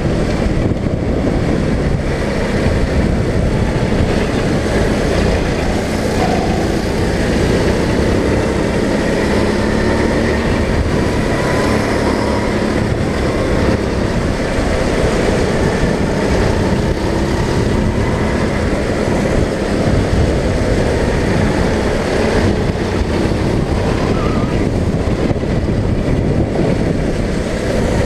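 Go-kart engine running hard, heard from the driver's seat, its note rising and falling slightly through the corners, with other karts close ahead.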